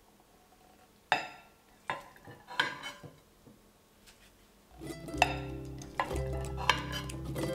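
Frying pan and spatula knocking and scraping lightly against a china plate as an omelette is slid out onto it: a few separate sharp clicks. About five seconds in, music with low bass notes comes in, with two more clicks over it.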